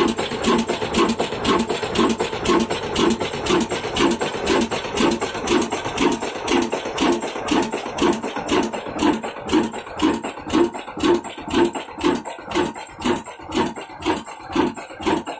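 Ruston Hornsby stationary diesel engine running, its big flywheels turning: a steady, even beat about twice a second with a mechanical clatter between the beats.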